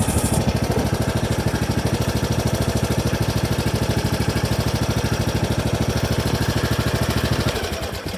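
Riding lawnmower engine running steadily just after starting, a fast even chugging, then slowing and dying away near the end as it shuts off.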